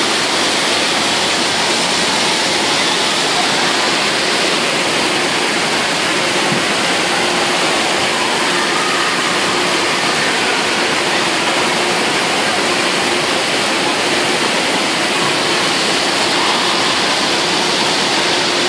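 Steady rush of water pouring down water slide flumes into the runout, unbroken throughout.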